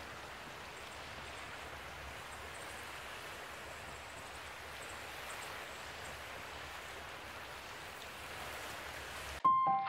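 Steady outdoor background noise, an even hiss with no distinct events. Piano music starts suddenly near the end.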